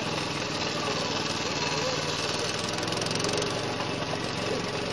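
A small engine running steadily, the motor of the lure-coursing machine that pulls the lure line.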